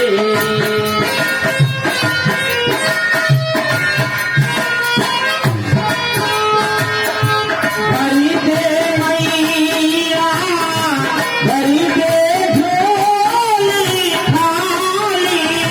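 Live Indian devotional folk music: a dholak hand drum beating under a held melody line that starts to bend and glide about halfway through.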